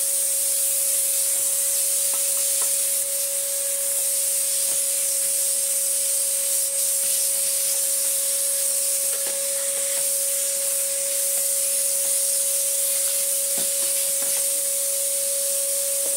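Sealey vacuum cleaner running steadily: a steady whine over a strong rush of air through its hose and nozzle as it sucks dust, with a few light taps of the nozzle against plastic.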